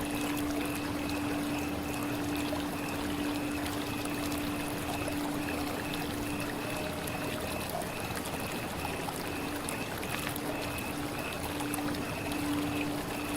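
Water running steadily in a continuous trickling, pouring hiss, with a steady low hum and a faint pulsing higher tone underneath.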